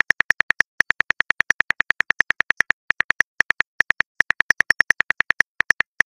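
Smartphone on-screen keyboard clicks as a message is typed: rapid short ticks, about seven a second, in several runs broken by brief pauses.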